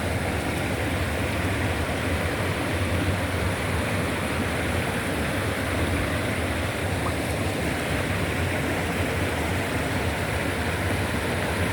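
A clear jungle river flowing, a steady rushing of water.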